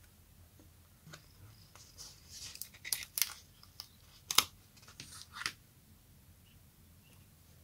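A transparent gold-foil sticker sheet being flexed and a sticker peeled off its backing: a faint, irregular run of crackles and clicks, loudest about four seconds in, stopping at five and a half seconds.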